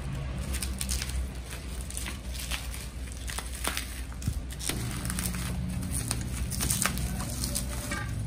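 Plastic bubble wrap crinkling and crackling in irregular quick bursts as it is handled and unwrapped from a spray can, over a low steady hum.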